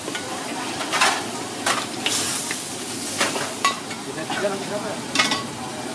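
Mud crab pieces sizzling in chili sauce in a hot wok, with a steel spatula scraping and clanking against the wok about six times.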